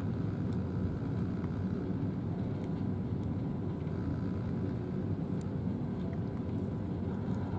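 Steady low outdoor rumble with a faint steady tone and a few faint clicks.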